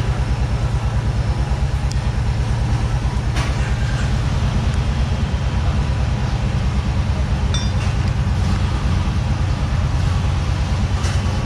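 A motor running steadily with a low, rapid throbbing pulse in a workshop, with a few sharp metallic clinks from tools at about three and a half, seven and a half and eleven seconds in.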